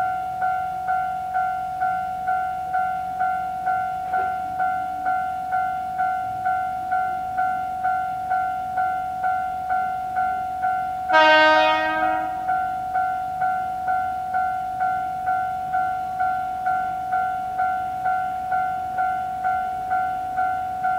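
Japanese level-crossing warning bell ringing, a steady electronic ding repeating about twice a second. About eleven seconds in, a DD40 diesel locomotive's horn sounds once, loud and lasting a little over a second.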